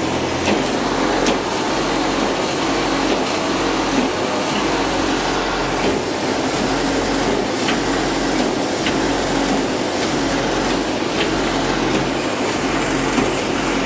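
Crawler rotary drilling rig running steadily: a constant mechanical noise with a low throb and a few faint clicks.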